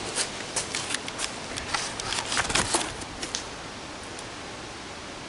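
A quick, irregular run of light clicks and scuffs close to the microphone over a steady hiss. The clicks stop about three and a half seconds in, leaving only the hiss.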